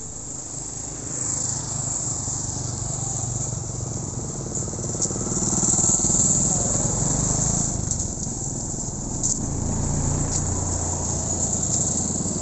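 Steady high insect buzzing over passing road traffic: motorbikes and a small pickup truck drive by, their engine hum loudest about six seconds in and again near the end.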